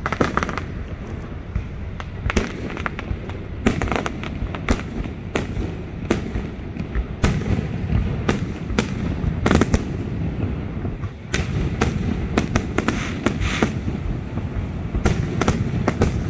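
Fireworks display: aerial shells bursting in sharp, irregular bangs, at times several a second, over a steady low rumble.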